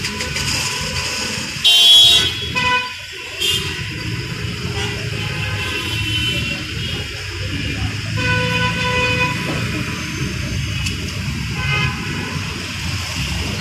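Busy city road traffic: a steady rumble of engines and tyres with car horns honking several times, the loudest a short blast about two seconds in.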